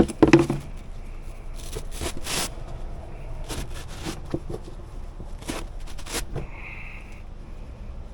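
Irregular scrapes, clicks and knocks of hand work on metal parts and tools, with a few short scraping strokes and a brief high-pitched whine about two thirds of the way in.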